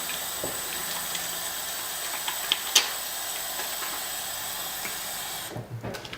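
Tap water running at a sink while a bar of soap is wetted in the hands, with a couple of sharp knocks about two and a half seconds in. The water shuts off suddenly near the end, leaving the soft sound of wet hands working up lather.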